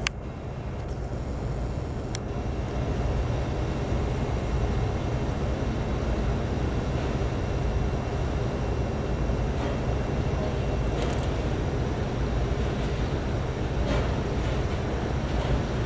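Steady low machinery rumble, with a few faint clicks in the second half.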